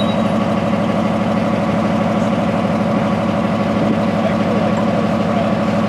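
Northwest 80D crane's engine running steadily with an even, rapid firing pulse.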